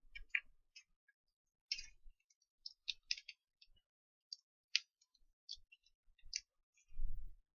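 Scattered small clicks and taps at irregular intervals, with a soft low thump near the end.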